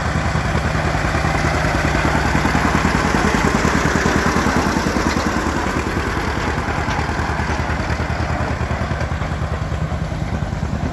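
1950 John Deere AR's two-cylinder gasoline engine running with a steady, rapid popping beat, getting slightly louder a few seconds in.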